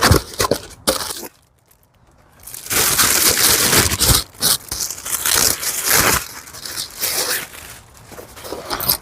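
Packaging being opened: crinkling, tearing and rustling as a box is unpacked. A few handling knocks at first, then a brief pause, then a long loud spell of rustling from about two and a half to six seconds, trailing off into scattered crinkles.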